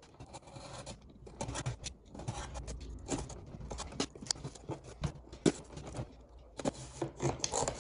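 Yellow snap-off utility knife slicing through corrugated cardboard in irregular scraping strokes, mixed with short clicks and rustles of the cardboard box being handled.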